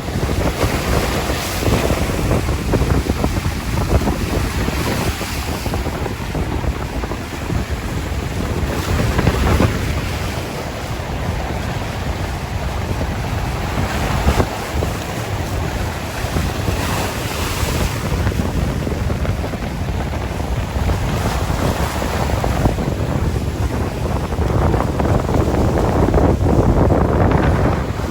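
Sea waves washing on a shore with wind blowing: a steady rushing noise, heaviest in the low end, that swells and eases every few seconds.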